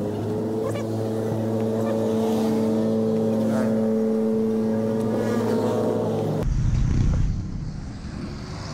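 A motor vehicle engine running close by at a steady pitch, a low hum with a slight rise. It cuts off abruptly about six and a half seconds in, leaving a low rumble of road traffic.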